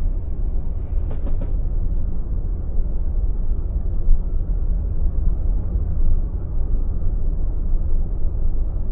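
Automatic car wash machinery running: a steady low rumble, with a brief cluster of knocks about a second in.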